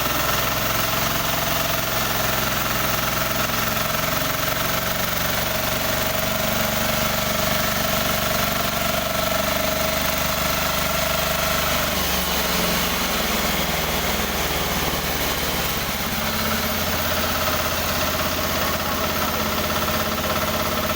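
Engine of a newly assembled sawmill running steadily on its test run. Its note shifts slightly a little past halfway.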